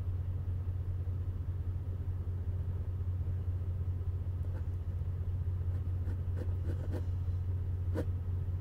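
A steady low hum or rumble, with a few faint ticks in the last few seconds.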